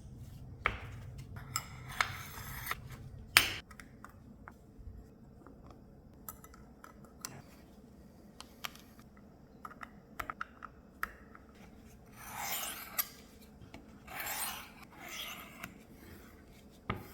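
Cleaning and handling of a small folding knife's parts. Scratchy rubbing strokes, three of them close together near the end, are mixed with scattered light clicks and one sharp knock a few seconds in.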